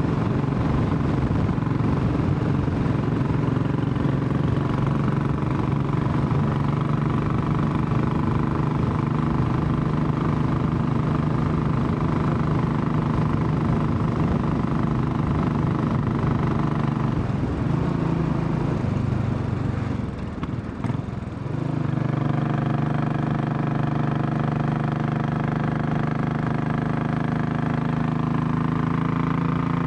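Royal Enfield Classic 500 single-cylinder engine running steadily under way, its note climbing slowly. About two-thirds of the way through, the note falls away and briefly quietens, then picks up again at a steady pitch.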